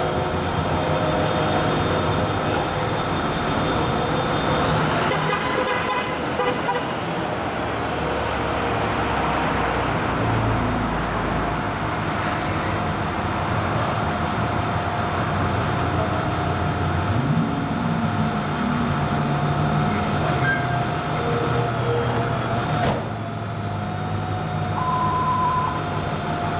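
Ambulance on an emergency run, sounding its Grover air horns in long steady tones over the truck's engine and road noise.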